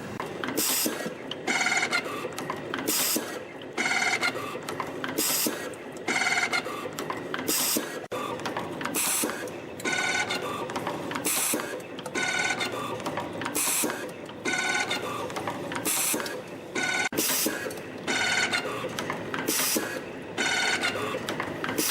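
CNC torsion spring machine running in production, feeding, coiling and cutting wire. It cycles in a steady rhythm, with a short, high whirring burst about once a second as each spring is formed.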